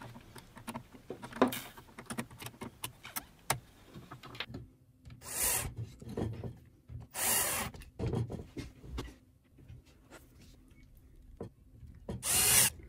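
Hand screwdriver working small screws on a metal switching power supply: terminal screws being tightened, then screws driven into the aluminium case. A scatter of small clicks and taps, then three short rasping scrapes, the last near the end.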